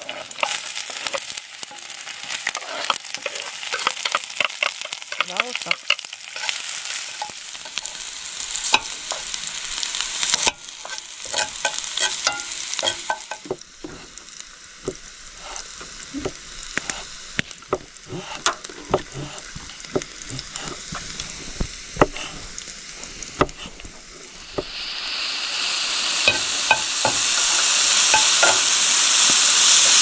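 Food frying in a pan on a camp gas stove: diced onion sizzling, with sharp clicks of a knife and spatula. About ten seconds in, a run of knife taps on a wooden cutting board takes over, over a quieter sizzle. Near the end, mushrooms sizzle loudly in the pan as they are stirred.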